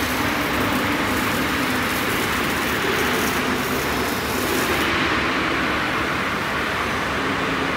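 Steady machinery noise of a steel fabrication hall: an even, unbroken hiss with a faint low hum underneath.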